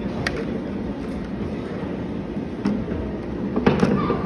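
A steady low rumble of background hall noise, broken by a few sharp plastic clicks and knocks as plastic toy vegetables are picked up and handled. The loudest cluster of knocks comes near the end.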